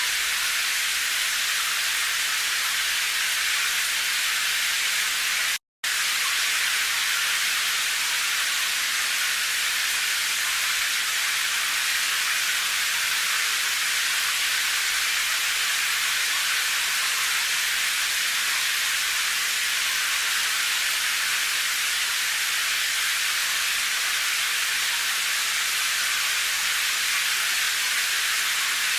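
Steady, even hiss of heavy rain, high-pitched with little low rumble and no separate drops standing out. It cuts out to silence for a split second about six seconds in.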